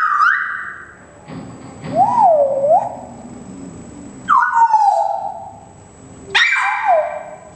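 An animal's repeated calls: four drawn-out, wavering cries about two seconds apart, each sliding up and down in pitch.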